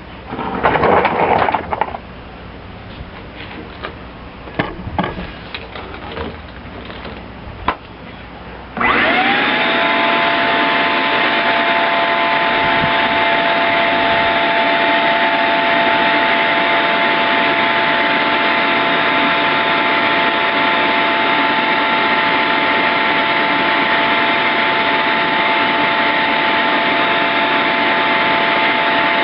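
Scattered knocks and handling clatter, then about nine seconds in a shop vacuum switches on. Its motor whine rises quickly to pitch and it runs steadily, sucking mouse-nest debris out of a lawn mower's engine housing.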